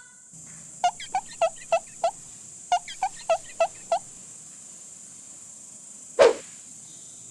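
Two quick runs of about five short, bird-like gobbling calls each, evenly spaced, followed a couple of seconds later by a single sharp whoosh.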